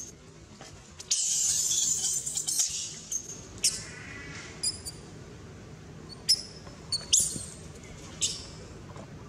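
Long-tailed macaques screaming during a scuffle: a loud, high screeching burst about a second in that lasts about a second and a half, then about six short, sharp high squeaks over the rest.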